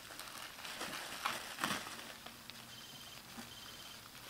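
Plastic bubble wrap crinkling as a baby handles it, with a couple of sharp crackles about a second and a half in, then quieter rustling.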